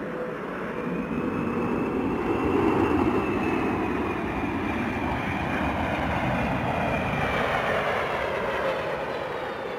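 Boeing C-17 Globemaster III's four turbofan engines running as it lands and rolls along the runway. A steady roar with a high whine on top, loudest a few seconds in, the whine rising and then falling away.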